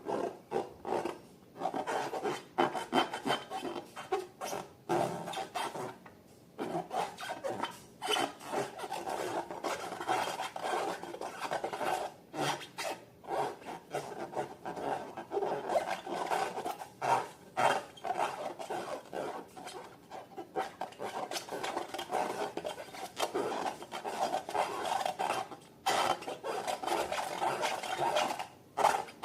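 Slime being worked by hand: dense, rapid sticky clicks and crackles, with a couple of brief pauses.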